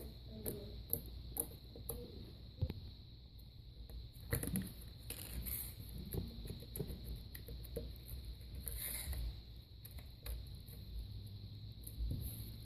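Floam slime being squeezed and worked by hand, giving irregular small crackles and clicks.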